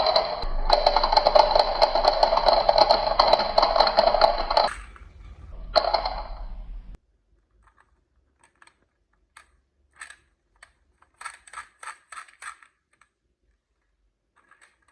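Marbles rolling and clattering down a toy marble-run track, a dense rattle of rapid clicks that stops about five seconds in, returns briefly, and cuts off suddenly about seven seconds in. After that come scattered small clicks of marbles knocking together.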